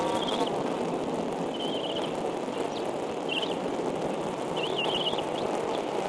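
Bald eaglet chicks giving short, high, wavering peeps about four times, the last one a longer trill, as they beg to be fed. Under them runs a steady rushing background noise, the loudest sound throughout.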